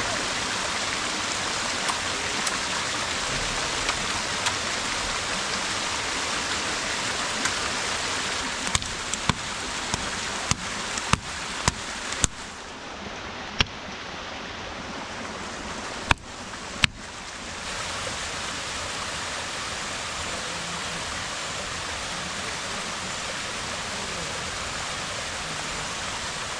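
Steady rush of running water, with a run of sharp knocks in the middle, from about nine to seventeen seconds in, while the rushing briefly drops.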